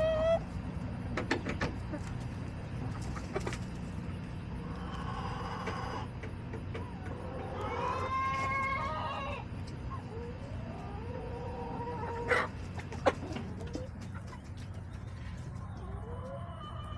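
Backyard chickens clucking and calling, with a longer drawn-out call about eight seconds in. A few sharp clicks or taps come through, over a steady low hum.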